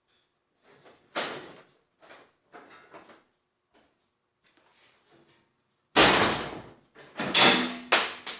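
Metal clanks and bangs from garage door track and roller hardware being worked loose: a sharp knock about a second in, a few lighter knocks, then a loud bang at about six seconds followed by more clattering.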